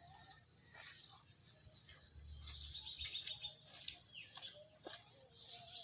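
Insects chirring steadily in a high, even drone, growing louder and rattling for a moment a couple of seconds in, with scattered faint clicks over it.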